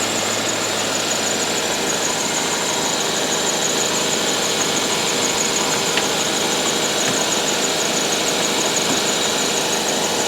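The 2014 Subaru Forester XT's turbocharged 2.0-litre flat-four idling with the newly installed AC compressor engaged and running, as refrigerant is charged into the system. The sound is a steady engine and compressor noise with a steady high-pitched whine over it.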